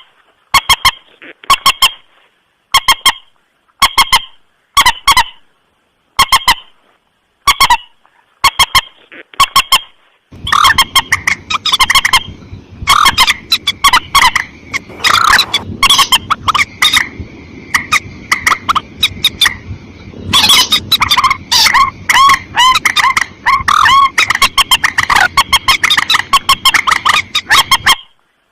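Common moorhen (mandar batu) lure-call recording: loud, short calls repeated in quick clusters. The calls are spaced apart at first, then come thick and fast over a low background rumble that starts about a third of the way in.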